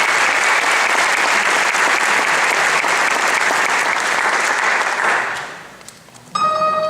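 Audience applauding steadily, dying away about five and a half seconds in. After a short pause a piano starts playing near the end, opening the accompaniment to the aria.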